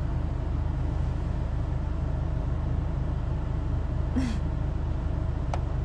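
Steady low hum of a parked car's idling engine, heard from inside the closed cabin, with a single sharp click near the end.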